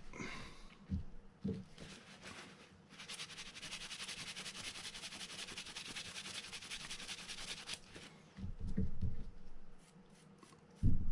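A toothbrush scrubbing a small reel part: a few seconds of fast, even bristle strokes in the middle. It is followed by low handling bumps and a sharp thump near the end.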